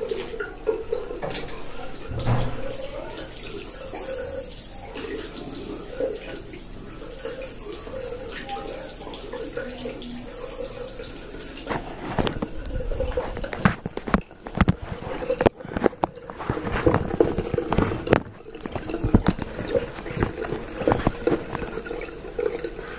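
Water running from a tap into a washbasin, with a run of sharp clicks and knocks in the second half.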